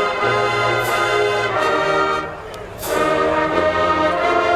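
HBCU marching band brass playing loudly: trumpets and trombones over a low sousaphone bass line, with two cymbal crashes. The band breaks off for a moment about two and a half seconds in, then comes back in.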